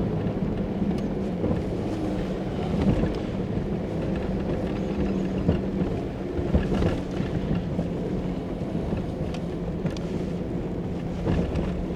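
Off-road vehicle's engine running steadily at low speed along a dirt road, with a low rumble and occasional light knocks.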